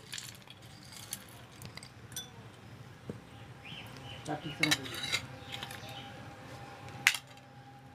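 Steel spoon scraping and clinking against a glass jar and a steel bowl as a dry fried snack mix (chanachur) is scooped out and tipped in, with a ringing clink about halfway through and a sharp click near the end.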